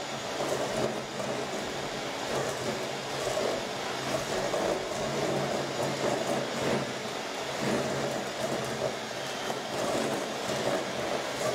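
Electric hand mixer running steadily, its beaters churning through butter and sugar in a stainless steel bowl as an egg is beaten into the mix.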